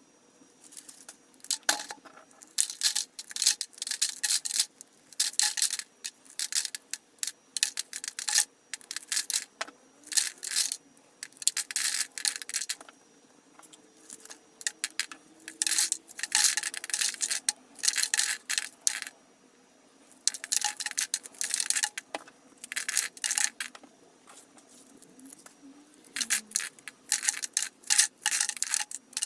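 Dried corn kernels being shelled off the cob by hand, in repeated bursts of crackling and rattling.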